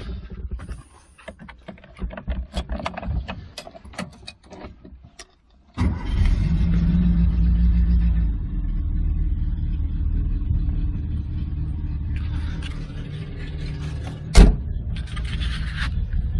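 Key and handling clicks, then a small classic Renault's engine starts suddenly about six seconds in, runs up briefly and settles to a steady idle. A single sharp knock near the end is the loudest sound.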